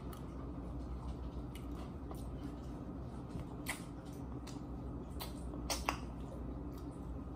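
Mouth sounds of someone eating chicken wings by hand: a few short, wet smacking clicks, mostly in the second half, over a steady low hum.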